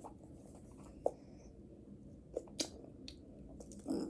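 Faint eating sounds: a few soft mouth smacks and clicks, spaced apart, with a slightly longer one near the end.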